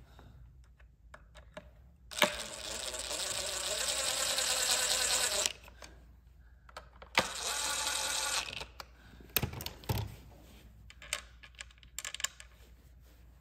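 Cordless screwdriver running a screw into a chainsaw's housing: one run of about three seconds that grows louder as the screw seats, then a shorter run of about a second and a half. A few clicks and taps follow.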